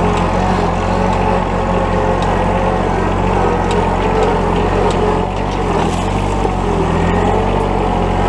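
John Deere 1023E compact tractor's three-cylinder diesel engine running steadily while driving, with a few faint ticks over it.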